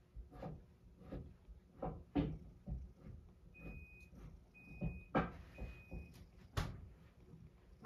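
Kitchen knife chopping carrot on a cutting board: short sharp knocks about twice a second.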